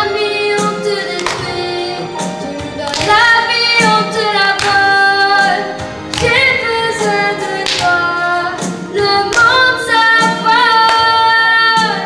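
Young girls' voices singing a French song from a stage musical over instrumental accompaniment with percussive hits, several notes held long.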